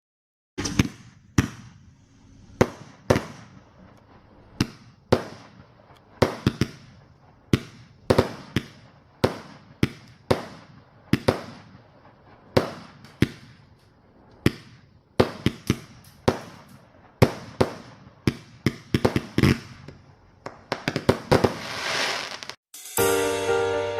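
A long series of sharp, loud bangs, each with a short fading tail, coming irregularly about one a second and quickening into a dense cluster near the end. The bangs break off suddenly and music starts in the last second.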